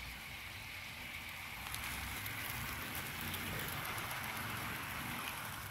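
Garden-railway model wagons rolling along the track, a steady rushing rattle of small wheels on rail. It grows louder from about two seconds in as the wagons pass close, then fades near the end as the train draws away.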